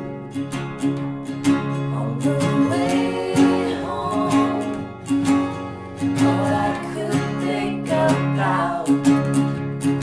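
Acoustic guitars strummed together under male and female voices singing a folk-rock song.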